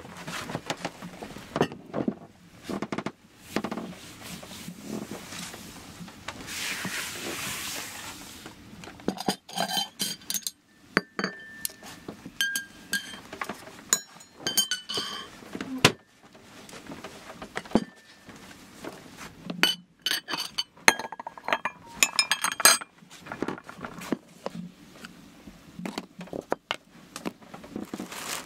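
Dishes, cups and glass jars clinking and knocking as a table is set, with repeated short ringing clinks of china and glass.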